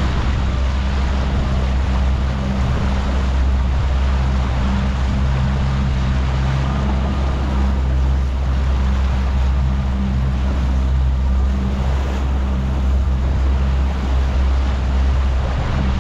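Suzuki 90 hp outboard motor running steadily, driving the boat under way, with a constant rush of wind and churning water from the wake.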